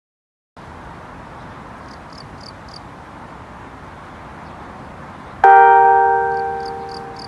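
Community-broadcast 5 p.m. chime from a TOA outdoor loudspeaker: about five seconds in, the first bell-like note of the melody strikes and slowly rings away. Before it there is only a steady outdoor hiss, with two short runs of faint high chirps.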